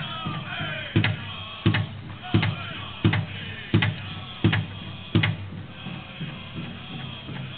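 Powwow drum group playing a fancy shawl dance song: a big drum beaten in a steady pulse under high-pitched singing. In the middle comes a run of seven much louder drum strikes, evenly spaced, before the steady drumming and singing carry on.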